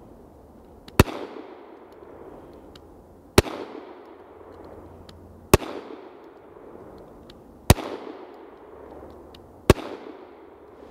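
Taurus G2C pistol fired five times, a shot roughly every two seconds, each with a trailing echo, and faint clicks between shots. The slow, spaced shots come from a very heavy trigger pull in 5-degree cold, which the owner puts down to the trigger safety failing in the bitter cold: the trigger breaks loose with a click, falls to the sear and fires.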